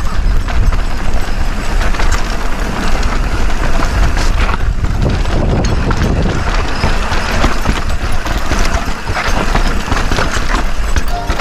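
Mountain bike descending a rocky trail at speed: tyres and bike clattering and rattling over rocks and dirt, with wind rumbling on the helmet-camera microphone.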